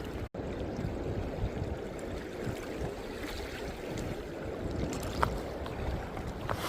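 River water running as a steady rushing wash, which cuts out for an instant near the start.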